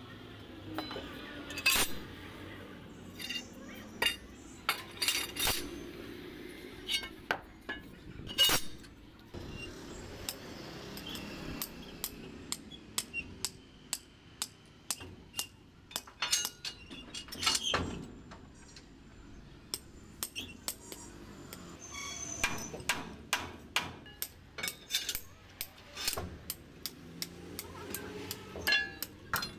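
Irregular sharp metallic clinks and knocks of steel leaf-spring leaves, clamps and hand tools being handled during refitting of a truck's leaf-spring pack, with a quicker run of light taps near the end.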